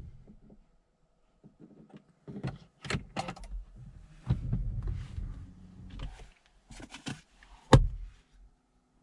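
Handling noises inside a car cabin: scattered clicks, rustles and knocks with quiet gaps, and one sharp, loud knock near the end.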